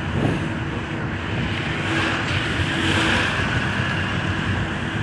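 Steady engine and tyre noise of a car driving along a road, heard from inside the vehicle, with a faint steady hum. A brighter hiss swells about two seconds in and then eases.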